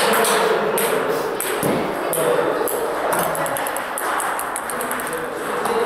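Table tennis rally: the plastic ball clicks off rubber-faced bats and the table during forehand topspin against chop, in the first second or so. After a pause, a quick run of small clicks comes about four and a half seconds in, like a ball bouncing to rest.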